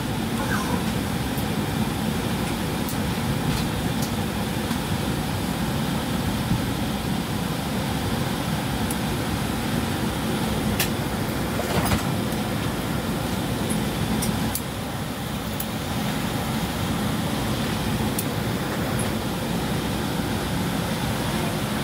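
Steady airliner cabin noise: a low hum with a rush of ventilation air, and a few faint clicks, with a slight drop in level about two-thirds through.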